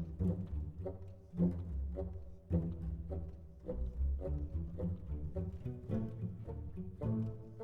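Background instrumental music led by low strings, bowed and plucked, with notes struck every half second or so.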